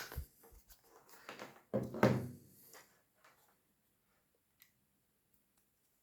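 Handling noises as a USB-C charger and cable are unplugged and swapped, with a louder knock about two seconds in and a few faint clicks after, then quiet.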